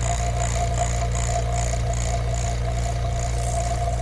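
Refrigerant vacuum pump running steadily with a low hum, evacuating an air-conditioning line set after a leak repair. A faint high pulse repeats about twice a second over the hum.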